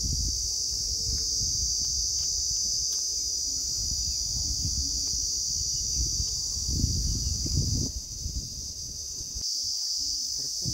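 Steady high-pitched drone of insects, with a low rumble beneath it that drops away near the end.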